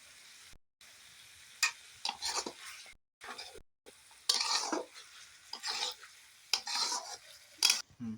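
Spoon stirring thick egg curry in a kadai, about six separate scraping strokes against the pan.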